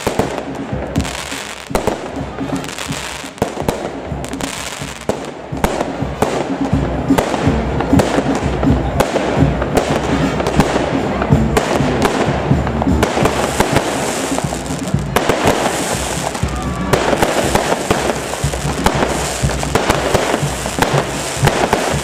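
Aerial fireworks display: shells bursting one after another, with sharp bangs over dense, continuous crackling.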